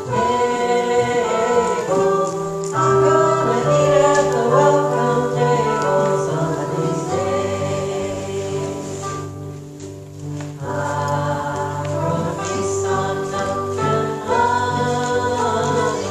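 A hymn sung by several voices over instrumental accompaniment that includes a small strummed stringed instrument, with held melody notes and a short break between phrases about ten seconds in.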